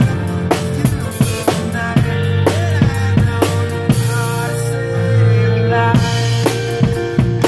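Acoustic drum kit with a brass snare played along to a recorded rock song: a steady kick and snare beat over the song's sustained backing, with a cymbal wash about four seconds in.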